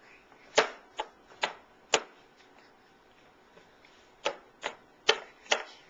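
Sharp taps or knocks on a hard surface: four in quick succession, a pause of about two seconds, then four more.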